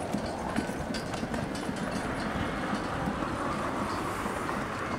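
Strong wind buffeting the microphone: a steady rumbling noise with a few faint clicks.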